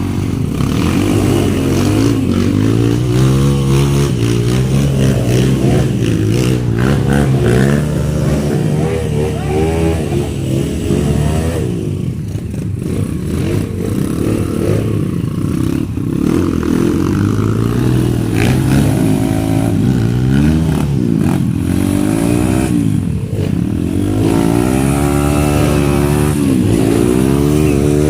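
Trail dirt bike engines revving, the pitch rising and falling again and again over a steadier low engine note.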